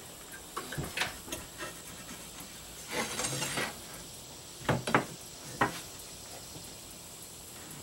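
A steel framing square being slid about and set down on a plywood sheet: a few light knocks at first, a short scraping slide around the middle, then three sharper knocks.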